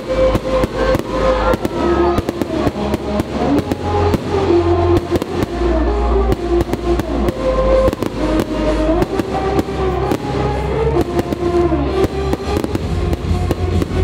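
Fireworks bursting and crackling in many sharp, irregular bangs, over loud music with a deep bass and a sustained melody.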